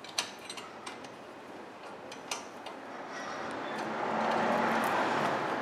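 A few sharp metallic clicks from a 14 mm wrench tightening the brake caliper's slide-pin bolts. About three seconds in, a steady rushing noise swells up and becomes louder than the clicks.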